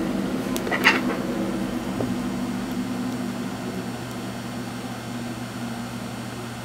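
Hot-air rework gun blowing steadily on a surface-mount chip to melt its solder for removal: an even rush of air with a low hum, easing slightly in level. A brief click comes about a second in.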